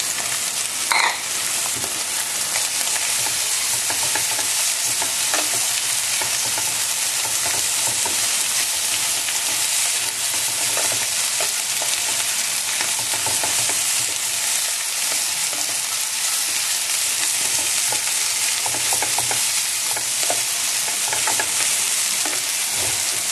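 Steady sizzle of noodles, shrimp and egg frying in oil in a pan, with short scrapes of a wooden spatula as the rice vermicelli is stirred in.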